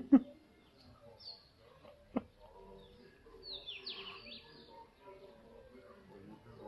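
A quick run of high, falling, bird-like chirps about three and a half to four seconds in. Before them come two loud, short yelping calls right at the start and another sharp call about two seconds in.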